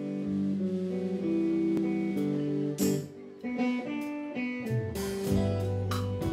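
Live band playing a song's instrumental intro in a blues-tinged soft-rock style: guitars picking and holding notes. About five seconds in, bass and drums with cymbal strikes come in.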